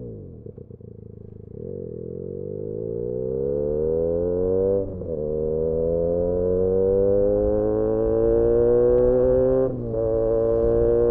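Benelli 302S parallel-twin engine through an Austin Racing aftermarket exhaust: the revs fall as the bike slows, then it pulls away with rising pitch, shifting up twice, about five seconds in and near the end.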